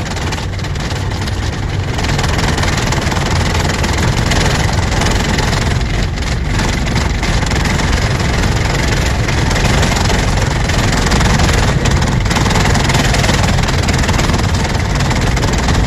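Steady engine and road noise heard from inside a moving vehicle's cab: a low rumble with hiss over it, building slightly in the first couple of seconds and then holding even.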